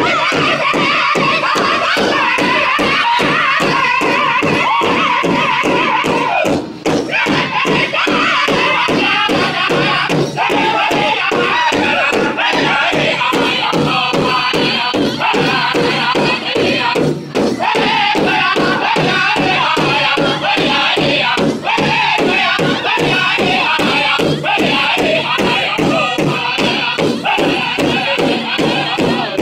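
Powwow drum group singing together over a large shared drum beaten with sticks in a steady, even beat. The singing breaks off briefly a few times while the drumming goes on.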